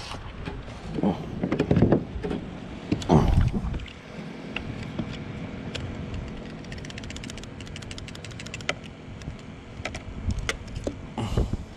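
Water splashing and sloshing against a fishing kayak, loudest twice in the first four seconds and again near the end, with a run of small, irregular clicks and taps in between.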